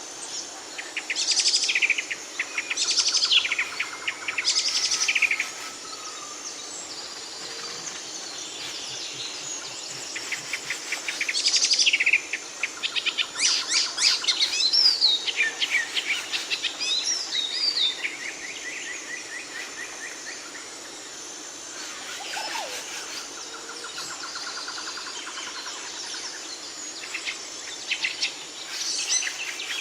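Songbirds singing and calling in bursts of fast chirps, trills and gliding whistles, with quieter stretches between, over a steady faint background hiss.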